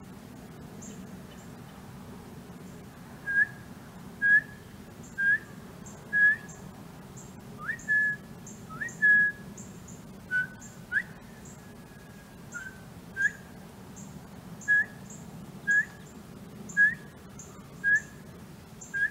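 A man whistling by mouth in imitation of northern bobwhite quail calls, to gather a scattered covey: short, clear whistled notes about once a second, a few of them sliding upward, starting about three seconds in. Faint high chirps repeat in the background.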